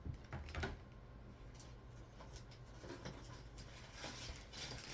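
Faint handling sounds from hands at a table: a few light clicks early on, then a soft rustle about four seconds in.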